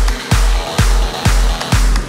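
Background music: an electronic dance track with a steady, heavy kick drum at about two beats a second.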